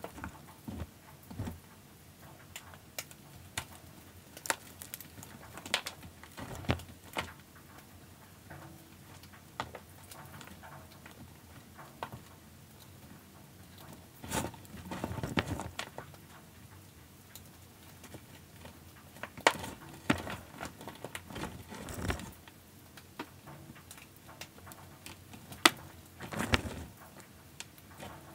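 Gym chalk reforms being crushed and crumbled by hand: dry, crunchy crackling and powdery crumbling in irregular handfuls, with louder spells of crushing around the middle and near the end. The audio is played at double speed.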